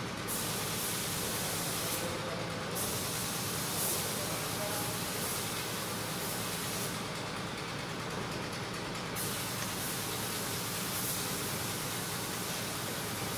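Steady background hiss. Its highest part drops out briefly about two seconds in, and again for about two seconds around the middle.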